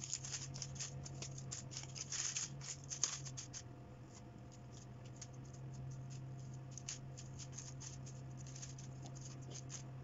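Dry, crunchy dead leaves and dried flowers crackling and rustling as they are handled and placed into a plastic bowl. The crackling is busiest in the first few seconds, then comes in sparser bursts, over a faint low steady hum.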